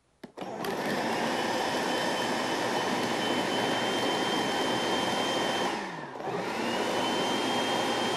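Food processor motor mixing olives into a stiff bread dough: it whirs up to speed with a steady whine, is switched off about six seconds in and winds down, then is switched on again for a couple of seconds and winds down once more near the end.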